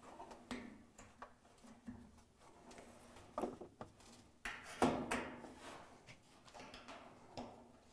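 Faint handling noises of a washer's steel suspension rod and its plastic bearing being worked at the cabinet corner: scattered light knocks, clicks and rustles, the loudest about three and a half and five seconds in.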